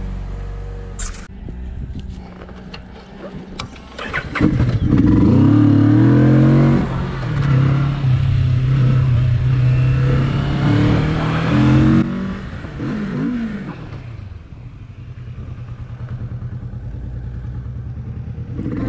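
Motorcycle engine pulling away and accelerating, loud from about four seconds in, its pitch rising in steps with a gear change, then easing off about twelve seconds in to a quieter steady cruise.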